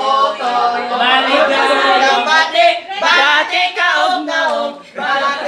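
A small group of voices singing a birthday song together.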